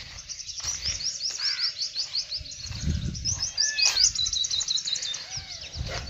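A chorus of small birds chirping, many short high notes in quick runs overlapping throughout, busiest a little after the middle.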